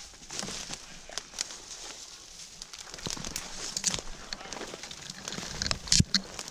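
Footsteps crunching in snow while pushing through snow-laden brush, twigs brushing and crackling against clothing in an irregular run of small snaps, with a louder crunch about six seconds in.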